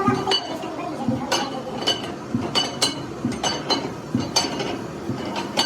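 Light metal-on-metal clinks, struck repeatedly at an uneven pace of about two to three a second, each with a short bright ring.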